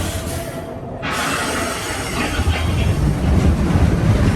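Expedition Everest roller coaster train running along its track: a rumbling rattle of wheels on rail, with a sudden rise in hiss about a second in, growing louder toward the end.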